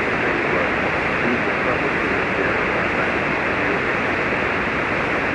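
Steady hiss and static from an HF ham radio receiver on 40-metre single sideband, a band of noise that stops sharply above the voice range.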